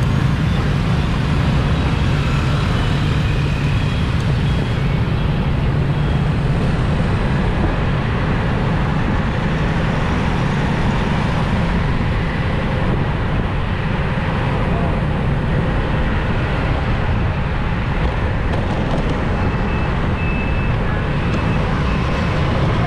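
Steady rush-hour street traffic, engines and tyre noise, with a heavy low rumble.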